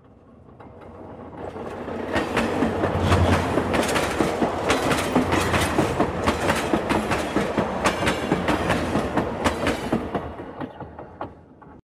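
Train running on rails, its wheels clacking rhythmically over the rail joints. It fades in over the first couple of seconds and fades out near the end.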